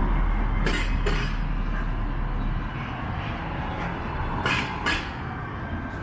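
Street traffic: a heavy vehicle's low rumble fading away over the first few seconds, with two pairs of sharp knocks, one about a second in and one about four and a half seconds in.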